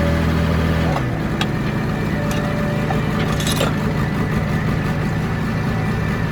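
A heavy engine running steadily; about a second in its pitch drops and settles at a lower speed. A few light metallic clinks sound over it.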